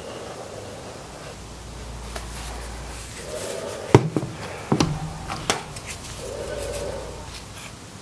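Quiet handling of a wooden strip and a glue bottle during gluing, with a few sharp knocks and taps. The loudest knock comes about four seconds in, with two lighter ones soon after.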